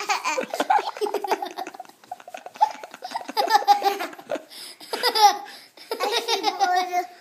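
A young child laughing hard while being tickled, in repeated bursts of belly laughter with short breaks between.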